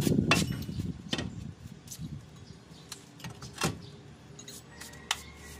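Scattered metal clinks and knocks, about four separate strikes, as the brake backing plate is worked loose and lifted off the truck's front steering knuckle.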